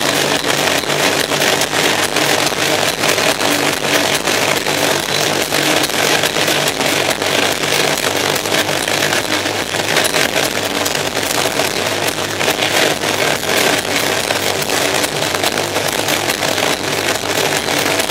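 Black metal band playing live, loud: distorted electric guitar over fast, dense drumming.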